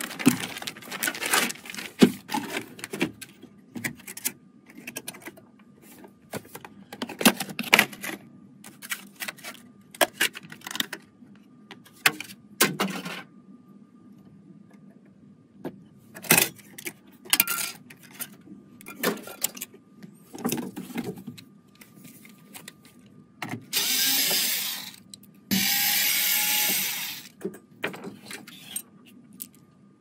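Computer parts being handled during a PC build: scattered clicks, taps and knocks, with two longer hissing scrapes near the end, the second about two seconds long.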